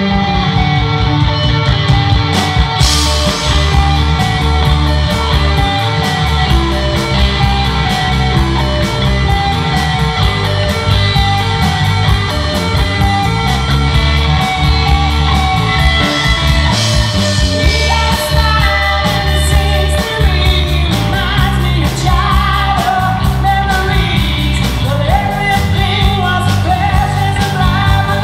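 Live rock band playing loud on a stage PA: electric guitars, bass, drums and keyboard, with a woman singing lead over it partway through.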